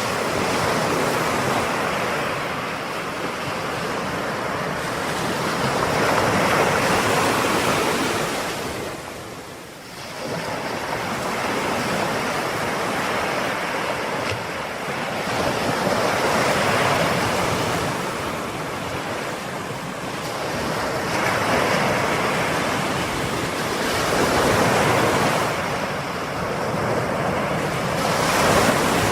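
Ocean waves breaking and washing on the shore, a continuous rushing surf that swells and eases every few seconds, with a short lull about ten seconds in. Some wind on the microphone.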